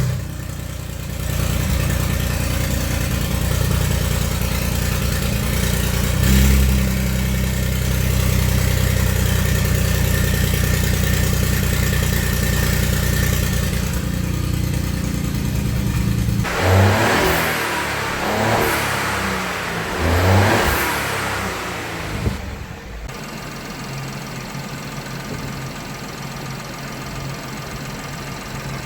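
Ford 1.0 EcoBoost three-cylinder petrol engine running, with its intake and exhaust manifolds still loose, on its first run after its rusted, seized pistons were freed. It runs steadily, is revved up and down three times about two-thirds of the way through, then settles to a quieter idle.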